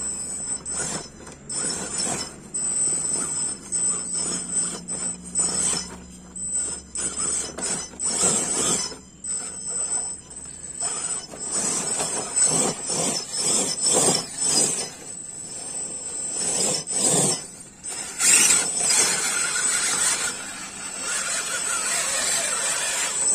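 Electric motor and geared drivetrain of RC rock crawler trucks whining in short stop-start throttle bursts as they crawl over rocks.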